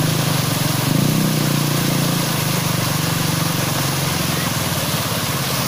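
A vehicle engine idling steadily, heard over a steady hiss.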